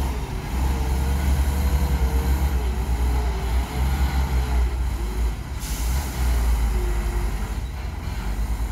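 Heavy 8x4 diesel dump truck engines running under load while the trucks move and tip soil, a deep steady drone with some rise and fall in pitch. About five and a half seconds in there is a short, sharp hiss of released air.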